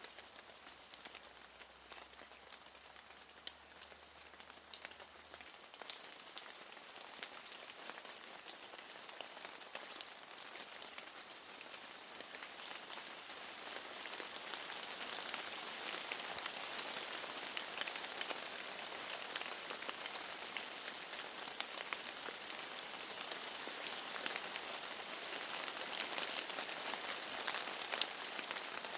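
Steady rain, with many separate drops ticking sharply on a hard surface close by; the rain gets heavier about halfway through.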